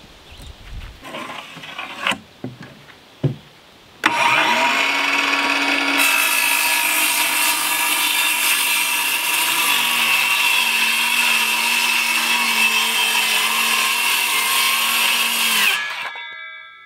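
Ridgid 18V cordless circular saw spinning up about four seconds in, then cutting through 3/4-inch plywood for about ten seconds: a loud steady whine over the cutting noise, stopping suddenly near the end. Before it, a few light knocks and rustles as the board is handled.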